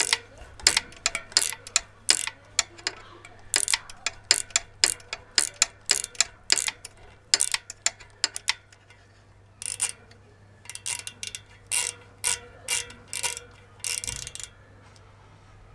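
Small ratcheting hex driver clicking in quick runs as the oil drain screw is turned out of a Rohloff Speedhub 500/14 hub shell. The clicking stops about a second before the end.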